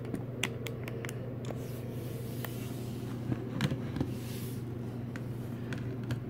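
A few light clicks and taps of clear plastic cups being handled and shifted on a wooden table, over a steady low hum.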